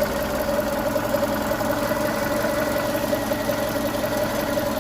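VW Golf Mk5 1.6's four-cylinder petrol engine idling steadily and evenly. It is running smoothly, its misfire on one cylinder cured by sorting that cylinder's injector wiring.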